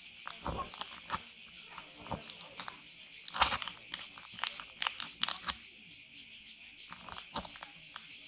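A steady high-pitched insect chorus, with scattered short clicks and scrapes from a tyre-repair awl being worked in a puncture in the tyre tread; the clicks come most thickly a little past three seconds in.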